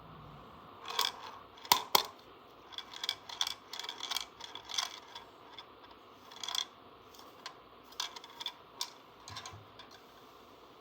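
Small hard toy pieces being handled, clicking and clattering irregularly, with two sharper snaps about two seconds in.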